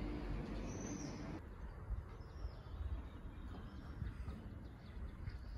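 A few short, high bird chirps over a low, uneven rumble; the background hiss drops suddenly about a second and a half in.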